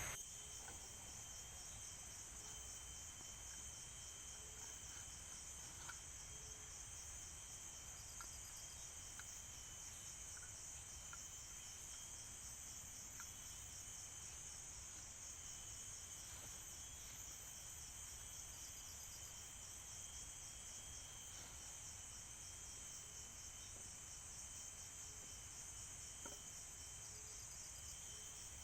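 Rainforest insects, crickets and the like, keeping up a steady, faint, high-pitched drone with a thin continuous whine, joined now and then by a few faint clicks.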